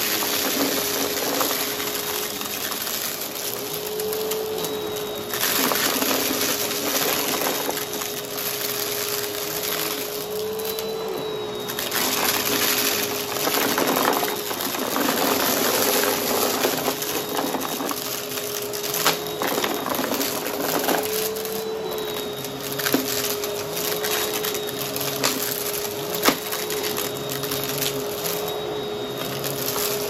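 Bissell brushroll vacuum cleaner running steadily on a rug, its sound swelling and fading with each push-and-pull stroke. Several sharp clicks in the second half are crunchy debris being sucked up.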